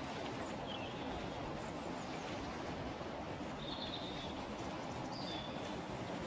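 Steady outdoor background hiss, with a few short, high bird chirps over it, one about a second in and two more past the middle.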